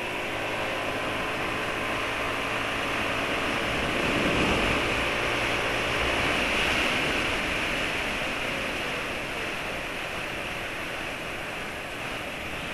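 Yamaha scooter riding at speed: a steady rush of wind over the microphone with the engine's hum underneath. The rush grows louder about four seconds in and covers the engine note.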